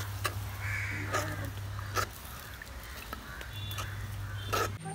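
Metal ladle stirring curry in a clay pot, knocking against the pot three times, over a low steady hum, with faint animal calls in the background.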